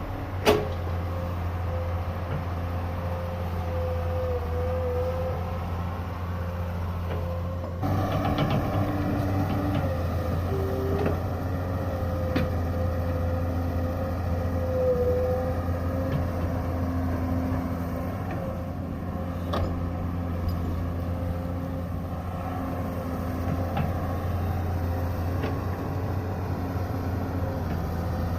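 Excavator's diesel engine running steadily under a low hum, with a thin wavering whine above it and a few scattered knocks. A sharp click comes about half a second in, and the engine grows louder about eight seconds in.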